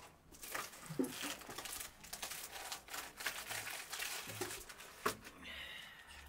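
Thin round flatbread being handled, folded and torn by hand: irregular rustling and crinkly tearing, with two sharp knocks, one about a second in and one about five seconds in.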